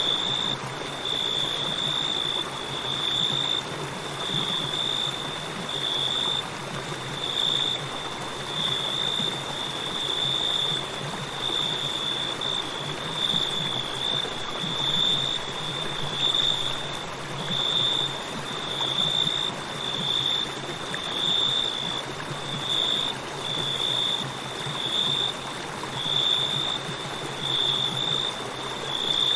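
Crickets chirping in a steady, high pulsing trill, about one burst a second, over the rushing of a flowing river.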